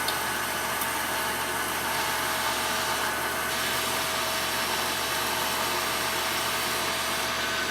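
1940s South Bend lathe running steadily under power, its drive giving a constant whine of several steady tones over a hum.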